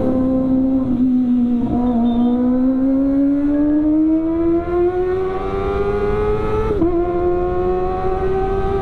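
Kawasaki ZX-25R's 250 cc inline-four with a CLD aftermarket exhaust, revving high under way: it holds a steady high note, rises smoothly in pitch as it accelerates, drops sharply about seven seconds in at an upshift, then holds a steady high note again.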